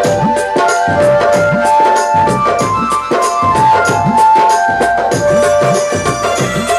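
Devotional music: a hand drum playing low strokes that bend in pitch, small cymbals ticking a steady beat, and a held melody line stepping between notes.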